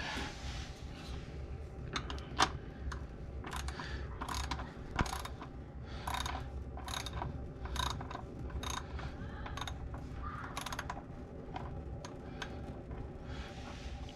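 Ratchet wrench with a 16 mm socket clicking in short bursts, roughly one to two a second, as the oil drain plug is worked loose and backed out.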